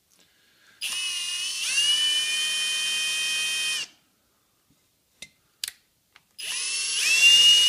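Cordless drill motor whining in two runs of about three seconds each. Each run steps up in speed about a second after it starts. The drill is spinning a valve with grinding compound against its seat in a John Deere B cylinder head, lapping the lightly tarnished seat back to a finish. A couple of faint clicks come between the runs.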